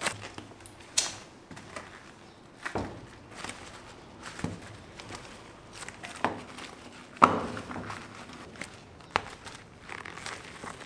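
Gloved hands working a warm, pliable mass of pulled candy on a work table: irregular thumps and sticky slaps as the candy is pressed flat, folded and rolled. The loudest knock comes about seven seconds in, over a faint steady hum.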